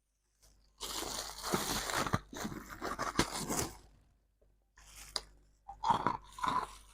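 Freezer frost being bitten and chewed, a dense run of crunching that starts about a second in and lasts about three seconds, followed by a few shorter crunches near the end.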